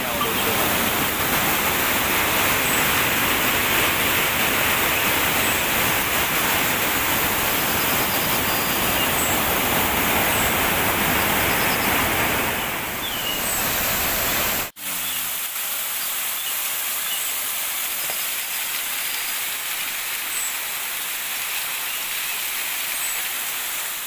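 Rushing water of a mountain stream cascading over rocks, a steady hiss. About two-thirds of the way through it cuts abruptly to a thinner, slightly quieter sound of falling water.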